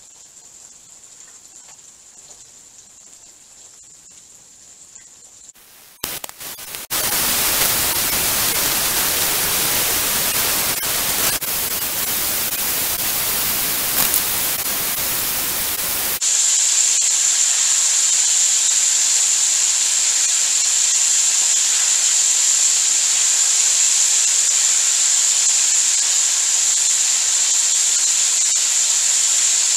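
Chicken wings deep-frying in hot oil in a wok: a steady sizzle. It is faint at first and jumps abruptly louder about six seconds in, then changes about sixteen seconds in to a loud, high, even hiss.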